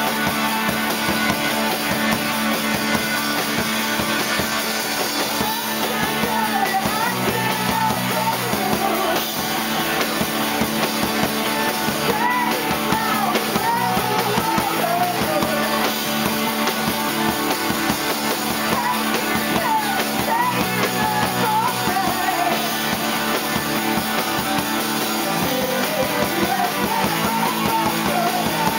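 A rock band playing live: electric guitar and drum kit with a singer's voice, over a low bass line that shifts note every few seconds.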